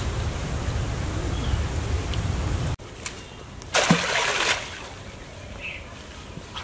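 A steady low rumble that cuts off suddenly, then a single short loud splash of pond water about four seconds in, as the water in a small open patch among water hyacinth is struck.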